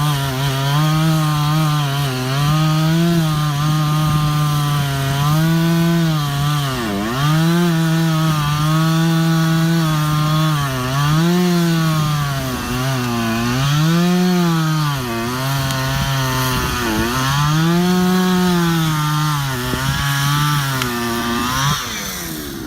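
Chainsaw at full throttle cutting through a large tree trunk. Its pitch drops again and again as the chain bogs down in the wood and then recovers, about every couple of seconds.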